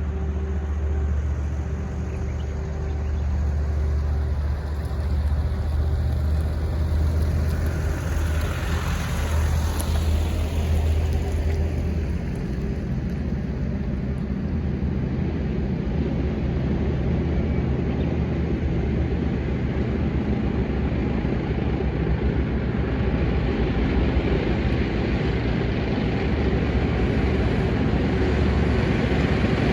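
Military tank engine running with a steady low drone. A rush of higher engine and running-gear noise swells and fades about eight to eleven seconds in, and the engine grows a little louder near the end.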